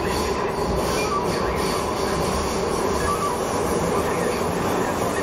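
Docklands Light Railway train running through a curving tunnel, heard from inside the train: a steady rumble of wheels on rail with a held whining tone over it.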